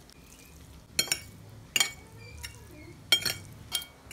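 Metal fork and spoon clinking against a ceramic plate while mixing noodles: several sharp clinks at uneven intervals.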